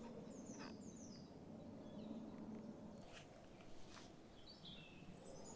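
Faint outdoor woodland ambience with small birds chirping: a few short, high, falling chirps, and two or three light clicks.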